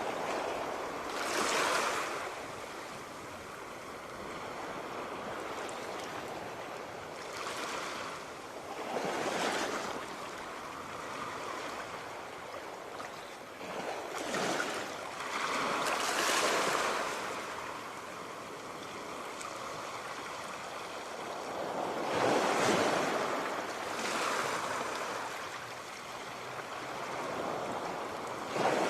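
Sea waves breaking and washing onto the shore: a steady hiss of surf, with a louder wave swelling in and falling away every few seconds.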